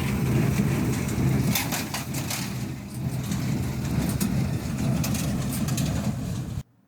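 John Deere 5085E diesel tractor and 328 square baler running steadily while baling hay, with a burst of sharp clicks and clatter from the baler about two seconds in. The sound cuts out abruptly near the end.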